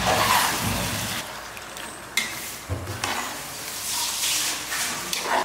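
Spatula stirring mutton pieces sautéing in oil in a nonstick pan: a sizzling hiss, with a few sharp knocks of the spatula against the pan from about two seconds in.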